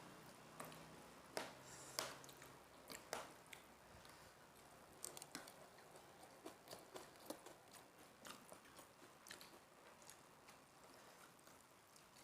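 Close-up eating sounds: chewing boiled instant noodles and crunchy krupuk crackers, with irregular sharp crunches and clicks, several a second.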